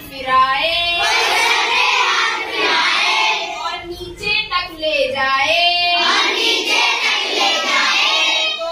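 A class of young schoolchildren singing a Hindi poem together in chorus.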